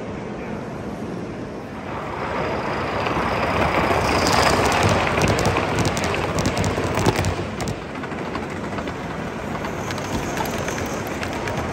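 Gauge 1 model train rolling past on the track, its wheels clicking over the rail joints. The rolling sound swells from about two seconds in, is loudest from about four to seven seconds with a run of quick clicks, then eases off over a steady background hum.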